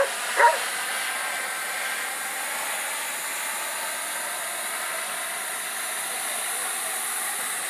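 Small model jet turbine of an RC Boomerang Nano running steadily, a constant hiss with a thin high whine above it. Two short sharp sounds come right at the start.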